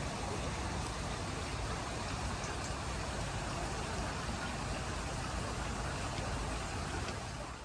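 Steady rushing hiss of a misting water-feature fountain spraying over a shallow pool, with a low rumble underneath; it fades out at the very end.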